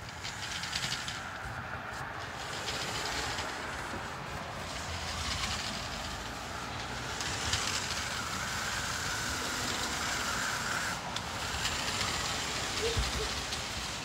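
New Bright Slide Winder remote-control car's electric motors whirring as its wheels spin and churn through snow, struggling for grip. The sound is steady, with a brief gap about eleven seconds in.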